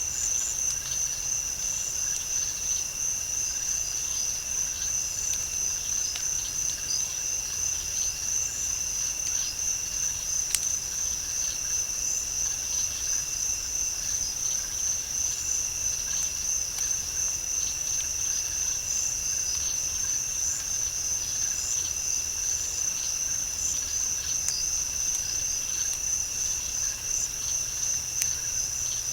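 Night insect chorus in a swamp: a steady, high-pitched pulsing trill with a second, lower steady buzz under it, and a single sharp click about ten seconds in.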